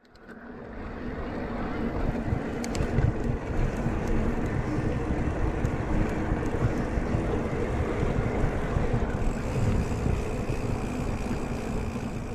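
Wind buffeting the action camera's microphone, with rumble from an electric mountain bike riding along. It fades in over the first couple of seconds, then runs steadily.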